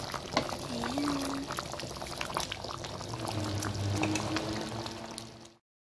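Thick coconut curry sauce bubbling at a simmer in a pan: a steady stream of small pops and plops. A few brief tones sound over it, and everything cuts off suddenly near the end.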